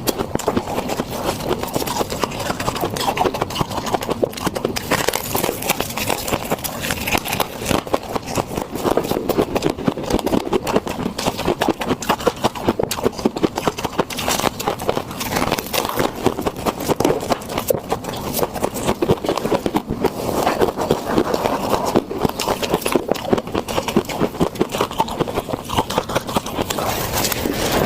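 Soft frost being chewed, heard as a dense, continuous crackling crunch with fast irregular small crunches.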